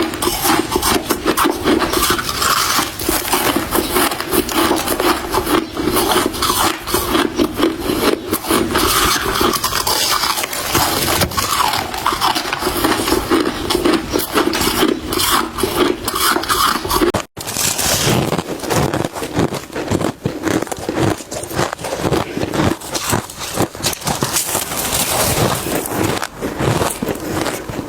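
Crushed ice being bitten and crunched close to the microphone: a dense, continuous crackle of cracking ice. It breaks off for an instant about two thirds of the way through, then carries on.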